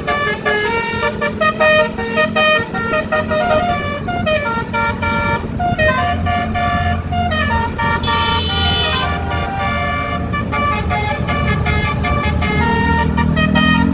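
Indonesian bus basuri (telolet) musical horn playing a tune: a quick run of clear horn notes changing pitch step by step, with some notes held longer.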